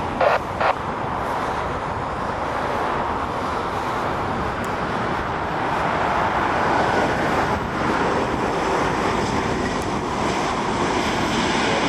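Four-engine Airbus A340-500 jetliner's engines and its passage as it touches down and rolls out along the runway: a steady rushing jet noise that grows louder about six seconds in.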